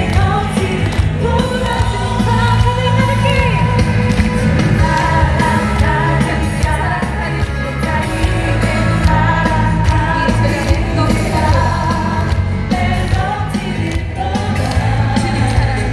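Korean gospel song sung by a woman with a full band, played loud over outdoor stage loudspeakers, with a heavy bass and a steady beat.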